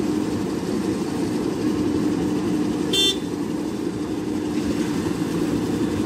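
JCB backhoe loader's diesel engine running steadily as it works the backhoe arm over a dump truck. About halfway there is one brief, sharp, high-pitched sound, like a short toot or a metallic clink.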